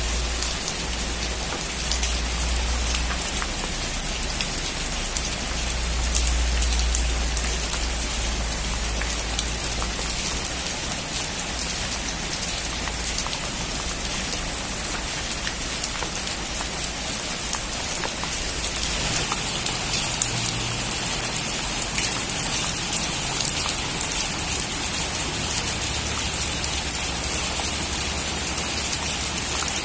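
Heavy rain on a metal roof: a dense patter of drops. A low rumble sits under it in the first half and dies away, and the rain grows heavier about two-thirds of the way through.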